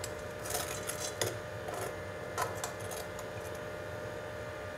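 Metal tongs clinking lightly against a steel saucepan as a fried bread slice is dipped in sugar syrup, a few light clinks in the first half, over a faint steady hum.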